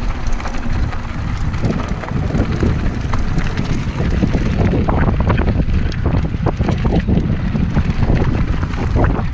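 Wind buffeting an action camera's microphone on a mountain bike descending a rough dirt trail, with the bike's rattles and knocks over bumps that come thicker in the second half.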